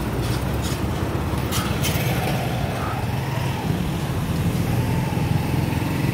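Street traffic: vehicle engines running close by, heard as a steady low rumble, with a couple of sharp clicks about a second and a half in.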